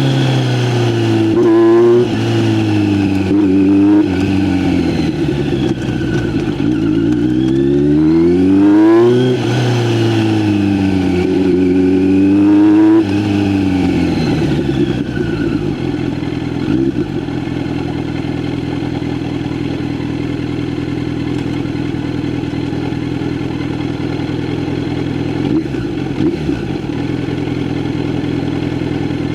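Kawasaki Z900's inline-four engine through an Arrow aftermarket exhaust, revving up and easing off, its pitch rising and dropping several times. About halfway through it settles to a steady, even note.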